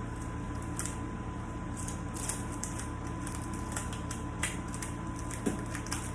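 Tape being handled and pressed down by hand to seal a leaking epoxy form: light crinkling and scattered small clicks, over a steady low hum.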